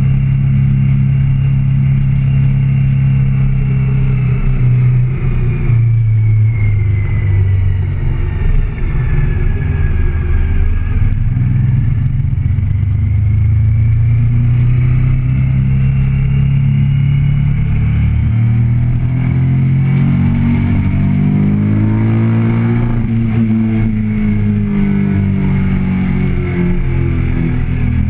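Motorcycle engine heard from on the bike as it rides, its revs falling and rising several times, with the biggest rise and fall near the end.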